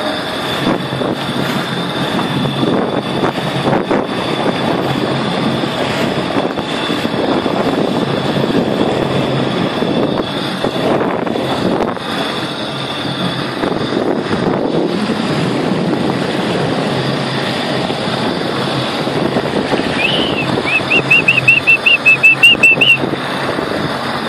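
Jet ski running steadily under way over open water, its engine noise mixed with water rushing along the hull. Near the end, a quick run of about a dozen loud, high chirps over two seconds.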